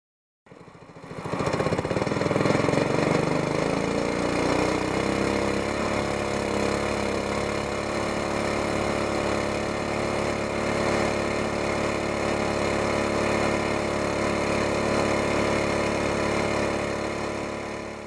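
Small gas engine on a jon boat's outboard drive, running under way. It cuts in about half a second in, rises in pitch as it speeds up over the first few seconds, then runs steadily at speed.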